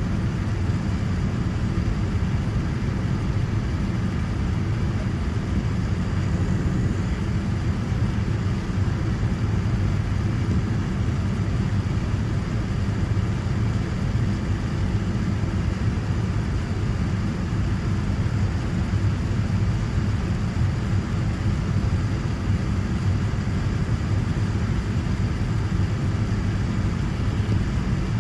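Steady cabin noise of a Boeing 787-9 in flight: an even low rumble of engines and airflow heard from inside the cabin, with no change in level.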